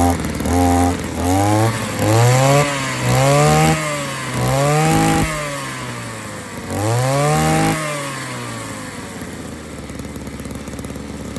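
Small two-stroke engine running, its throttle blipped about five times so the pitch rises and falls in repeated revs. It then settles to a steadier lower running note and cuts off sharply at the end.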